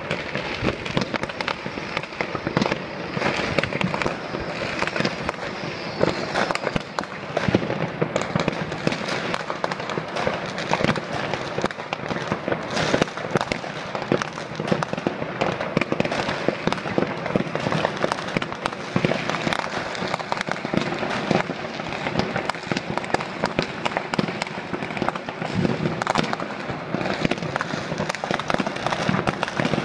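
Fireworks and firecrackers going off all across a city at once: a continuous crackle of sharp bangs, several every second, over a steady background of more distant bursts.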